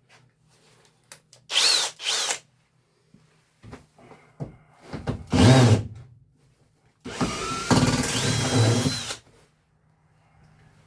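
Power drill backing out the screws that hold an old HVAC return in place, in short runs: two quick spurts about a second and a half in, another around five seconds, and a longer run of about two seconds near the end.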